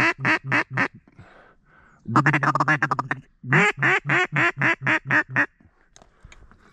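Mallard duck call blown in loud, evenly spaced quacks, then a fast chattering run of notes, then another series of about eight quacks.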